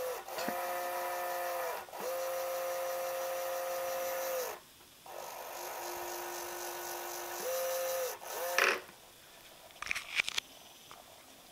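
Solarbotics 30:1 gear motor whining as it spins a Lego wheel, run in spells at varying speed: each start is a quick rising whine, it cuts out briefly twice, runs slower and quieter in the middle, then speeds up again and stops about nine seconds in. A few faint clicks follow near the end.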